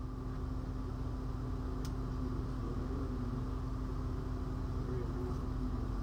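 Engine running steadily with a low mechanical hum and a constant tone, getting slightly louder as it goes.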